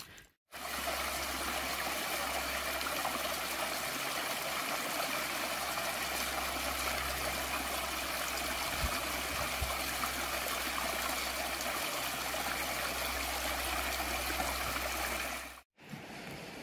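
Shallow rocky stream trickling and gurgling over stones, a steady wash of running water that starts about half a second in and cuts off abruptly near the end.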